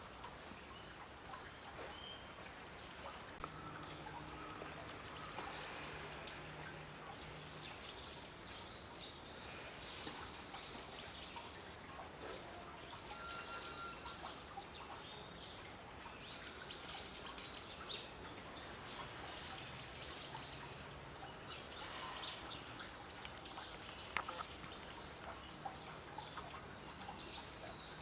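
Faint outdoor background noise with many small bird chirps scattered through it. A low hum comes and goes twice.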